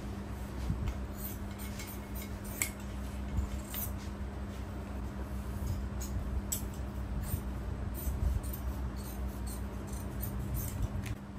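Hand tools at a workbench: irregular light clicks and small scrapes, over a steady low hum.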